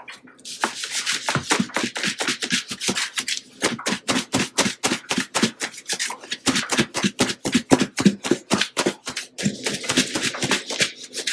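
Mustard-coated pork chops being shaken in seasoned flour inside a lidded plastic bowl: a quick, rhythmic rattle and thud of the meat and flour against the bowl and lid.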